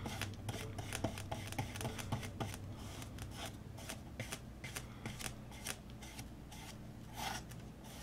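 Flat paintbrush stroking Mod Podge onto a small wooden birdhouse: a faint, quick, irregular run of scratchy brush strokes.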